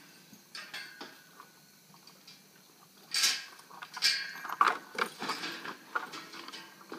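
Western saddle tack being fastened in a hurry: metal cinch rings and buckles clinking and leather straps rustling, a few faint ticks at first, then a busy run of sharp clinks and scuffs from about three seconds in.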